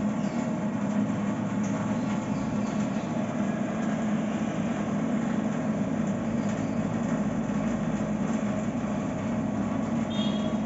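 Aquaguard Aura RO water purifier running: its booster pump hums steadily as it purifies.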